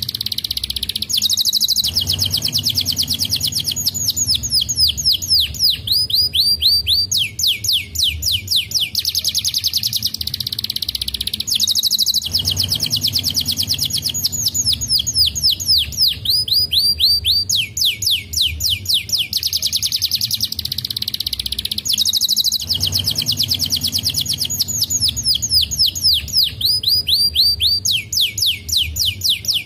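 Domestic canary singing: long runs of fast trills, rapid high whistled notes swept one after another, changing from one trill to the next. The same song phrase comes round about every ten seconds, three times over.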